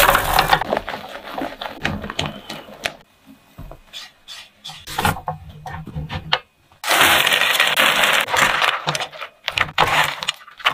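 Cooking sounds in a nonstick frying pan. Marshmallows tumble into melted butter at the start, then a spatula scrapes and knocks against the pan. About seven seconds in comes a steady pour of dry ingredients lasting two to three seconds.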